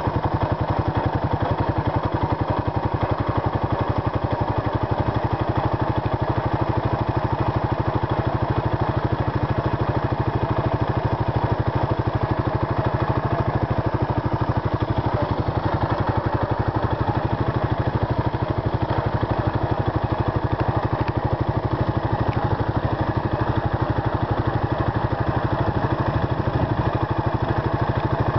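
Suzuki Savage LS650's single-cylinder four-stroke engine running steadily at a constant cruising speed, its firing pulses coming evenly and rapidly, heard from on the moving motorcycle.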